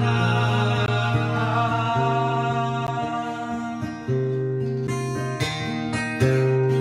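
Acoustic guitar playing a song's chords, with ringing bass notes that change about every second and a few sharp strums in the second half.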